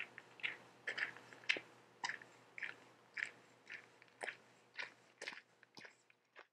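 Footsteps crunching on gravel at a walking pace, about two steps a second, growing fainter and fading out near the end.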